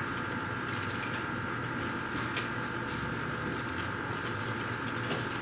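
Quiet room tone with a steady faint hum and a thin high whine, with a few faint ticks.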